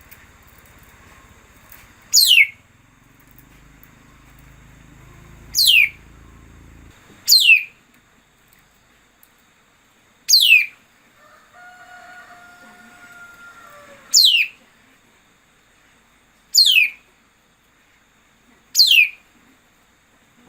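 A songbird giving a loud, sharp whistled call that sweeps steeply down in pitch, repeated seven times a few seconds apart, used as a decoy call to lure birds of its kind.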